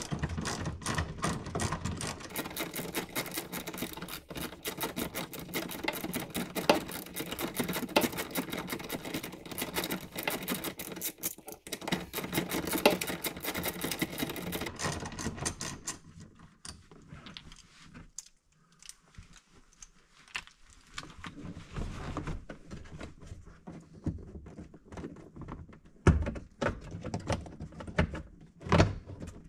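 Ratchet wrench with a 14mm socket clicking rapidly for about fifteen seconds as it backs out a seatbelt anchor bolt. After that come sparser clicks and knocks from the loosened hardware being handled.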